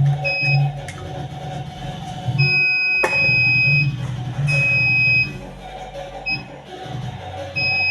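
Polytron Zeromatic washing machine control panel's buzzer beeping in an uneven pattern of short and long steady high beeps, over background music.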